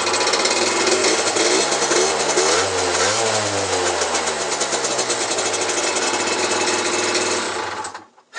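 Peugeot Speedfight 50cc liquid-cooled two-stroke scooter engine running just after starting. It is revved once about two seconds in and settles back, then cuts off suddenly near the end. The exhaust silencer's wadding has just been turned over and rewrapped to bring back the back pressure, and the engine sounds a lot better, no longer cracky.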